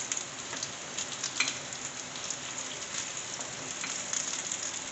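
Hot mustard oil sizzling in a frying pan around freshly fried paneer cubes: a steady crackling hiss with scattered small pops.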